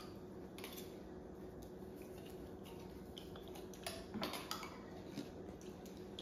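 Metal spoon scraping condensed cream of chicken soup out of a tin can into a plastic mixing bowl: light clinks and scrapes of the spoon against the can and bowl, a few louder ones about four seconds in.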